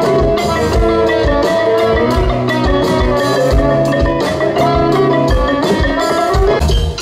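Live band music: a ranat ek (Thai boat-shaped xylophone) struck with mallets over electric guitars and a drum kit keeping a steady beat.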